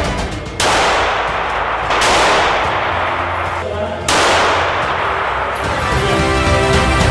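Three semi-automatic pistol shots inside an indoor firing range, about 0.6, 2 and 4 seconds in. Each shot rings on for over a second in the range's echo.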